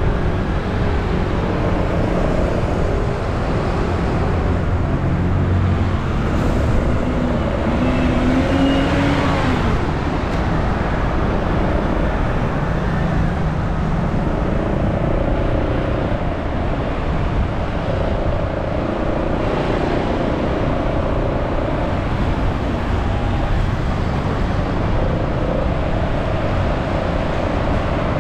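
Motorcycle engine running under way through city traffic, with road and traffic noise around it. The engine's pitch shifts with speed and rises briefly about eight seconds in.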